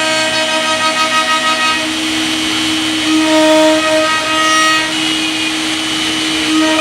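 CNC wood router spindle whining steadily while it cuts a pattern into wood, over a hiss of cutting noise. Its whine changes a little as the cutting load shifts.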